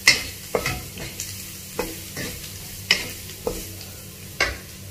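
Asparagus and baby carrots being stir-fried with garlic in a nonstick wok: a steady sizzle under a spatula scraping and clacking against the pan several times, the loudest clack right at the start.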